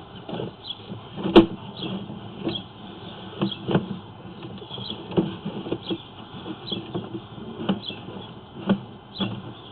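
Sewer inspection camera being pushed along a drain line, knocking and scraping irregularly inside the pipe, with the sharpest knock about a second and a half in.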